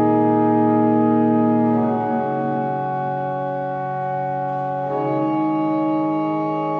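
Music of sustained organ-like chords, with the chord changing about two seconds in and again about five seconds in.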